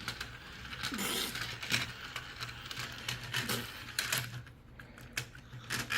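Scattered light clicks and clatter of a plastic toy car and puzzle-track pieces being handled, over a faint low hum.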